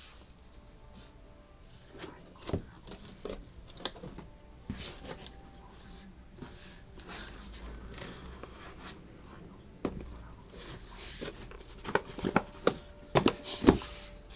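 Flaps of a large cardboard box being opened and handled: cardboard scraping and rubbing with scattered sharp taps, and a quick run of louder knocks near the end.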